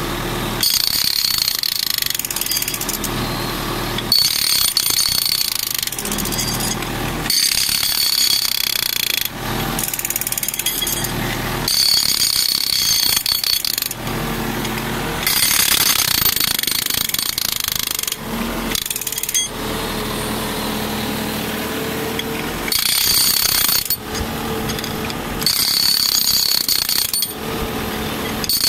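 Handheld hydraulic breaker hammering in repeated bursts of one to three seconds, stopping and starting again, powered by a skid steer's hydraulics through a flow divider valve. The skid steer's engine runs steadily underneath and is heard alone in the pauses, longest about two-thirds of the way in.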